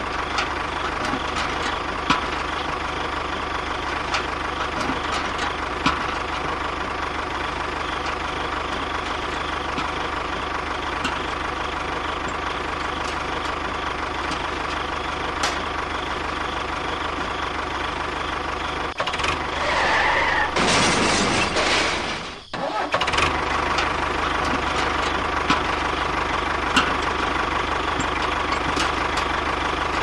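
A small motor running steadily with a constant hum. About two-thirds of the way in, a louder, hissier stretch joins it, then the sound cuts out for a moment before the steady running picks up again.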